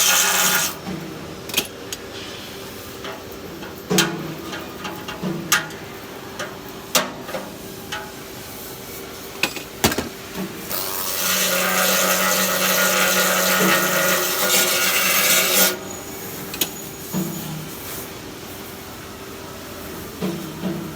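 Flux-cored arc welding on stainless steel: the arc runs with a steady sizzling hiss for about five seconds in the middle, with a shorter burst ending just after the start. Between the welds come scattered sharp clicks and knocks over a constant low machine hum.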